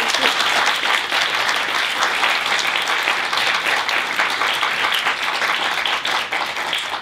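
An audience applauding, many people clapping steadily, fading away just after the end.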